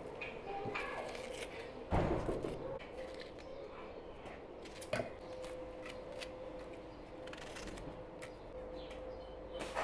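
Kitchen knife peeling onions by hand: short scrapes and cuts of the blade through the dry skin, with a thump about two seconds in and a smaller knock about five seconds in, over a faint steady hum.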